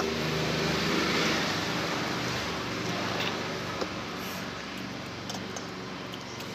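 A motor vehicle going by, its engine noise swelling about a second in and slowly fading, with a few light clicks.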